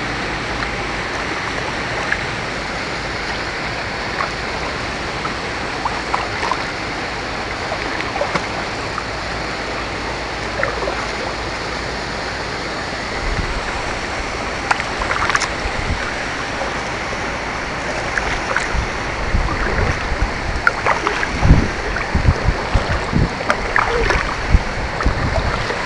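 A homemade bamboo kayak being paddled: a steady wash of water with small splashes and drips from the paddle blades. In the last several seconds, low irregular thumps grow louder.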